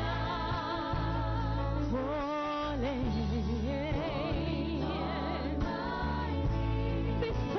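Slow gospel worship song: singers hold long, wavering notes over sustained keyboard and bass chords.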